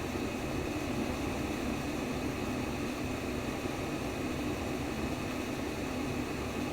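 Steady white noise for baby sleep: a constant, even rushing sound with no changes, fullest in the low-middle range.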